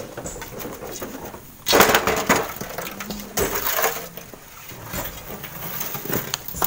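Stone and gritty sand being handled: a loud rough crunching scrape about two seconds in, a shorter one about three and a half seconds in, and scattered knocks in between.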